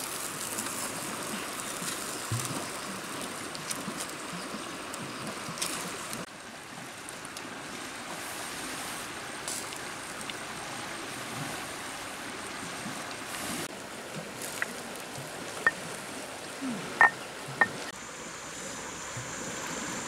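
Steady rushing of river water, with a few short sharp clicks near the end.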